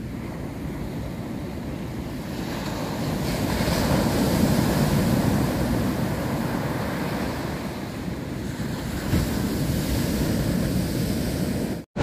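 Surf breaking on a sandy beach, swelling loudest about four seconds in and rising again near the end, with wind rumbling on the microphone.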